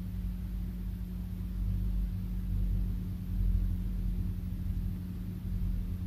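Room tone during a silent pause: a steady low hum with a fluctuating low rumble underneath and faint hiss.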